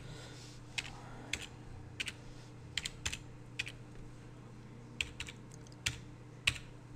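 Typing on a computer keyboard: about a dozen irregular keystrokes, with a pause of a second or so in the middle, over a faint steady low hum.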